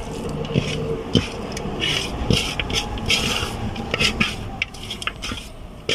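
A hand squeezing and mixing cooked rice in a metal pan, the rice and fingers scraping over the pan's bottom and sides in repeated short rasps.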